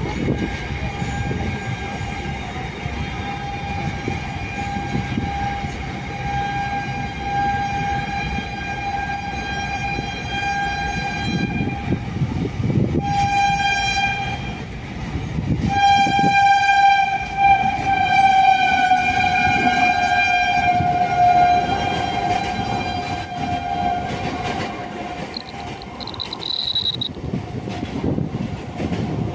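Container freight train rolling past close by, the wagons' wheels rumbling on the rails. Over it runs a long, steady high-pitched tone that breaks off twice around the middle, then sinks slightly in pitch and fades near the end.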